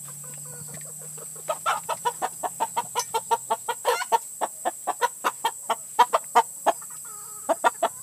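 Chickens clucking: a fast run of short clucks, about five a second, starting about a second and a half in, then a brief pause and three more near the end.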